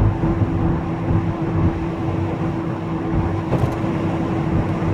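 Mk3 VW Golf coasting in neutral with the engine revs off: steady road noise with a steady whine that stays on without the engine's pull. The driver takes the whine for a worn rear wheel bearing.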